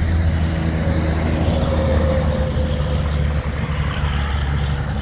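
Heavy diesel truck engine idling, a steady low rumble.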